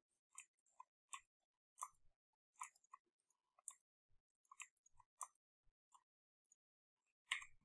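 Near silence broken by about a dozen faint, short clicks at irregular intervals.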